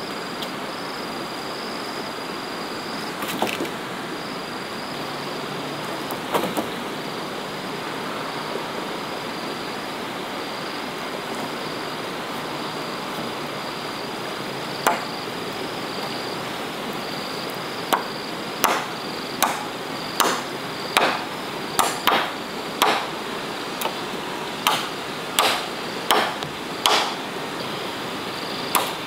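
Wood being chopped: a few scattered knocks early on, then a steady run of blows about one every second in the last ten seconds, over a constant high insect drone.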